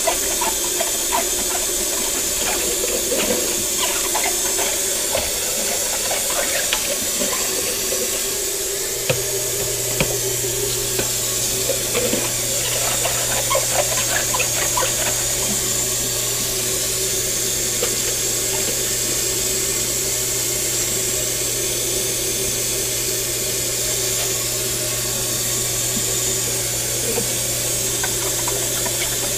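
Kitchen tap running into a stainless steel sink as a cup is rinsed by hand under the stream, with small clinks and knocks of the dishware, mostly in the first half.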